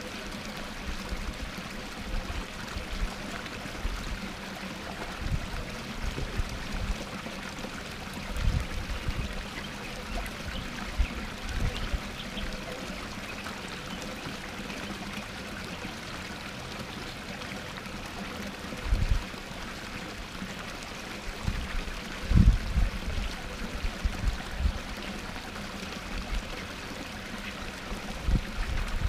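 Water from a small rock cascade pouring steadily into a pond, with occasional low bumps, the strongest about 22 seconds in.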